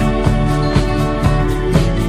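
Background music with a steady beat, about two beats a second, under held notes.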